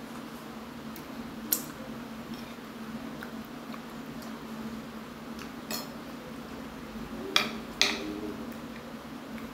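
Metal cutlery clinking against a plate while eating: four sharp clinks with a short ring. One comes about a second and a half in, one near six seconds, and two close together near the end. A steady low hum runs underneath.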